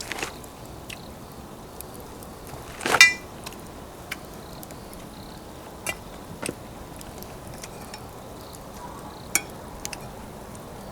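Metal eating utensils clinking against a cooking pot, with one louder, ringing clink about three seconds in and a few lighter ticks, over a steady low hiss.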